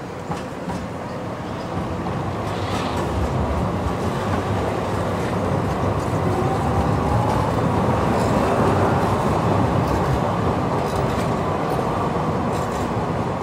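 San Diego Trolley light rail train of Siemens SD100 cars passing close by on street track, its wheels rumbling on the rails. The sound grows louder to a peak about eight to nine seconds in, with a faint rising whine partway through.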